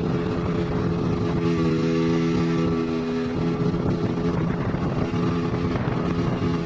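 Motorboat engine running steadily at speed while towing a banana boat, heard from aboard the towing boat, with the rush of water and wake spray. The engine's note shifts a little about three seconds in.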